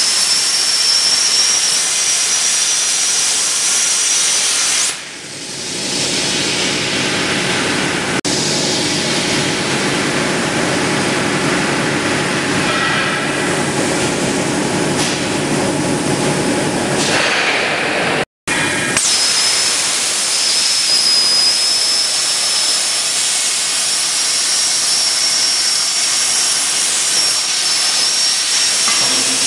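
Plasma cutting torch of a CNC pipe-cutting machine cutting steel: a loud hiss with a steady high whine over it. The whine stops about five seconds in, leaving a duller rushing noise. After a brief break the whining hiss comes back for the last ten seconds.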